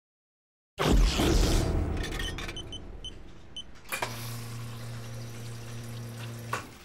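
Coffee vending machine in use: a loud rush of noise about a second in, a few short beeps, then the machine's motor hums steadily for a couple of seconds while dispensing and stops with a click.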